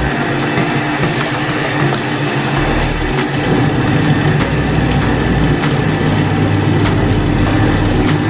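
Top-load washing machine running, a steady mechanical hum with a deeper low drone that cuts in and out several times.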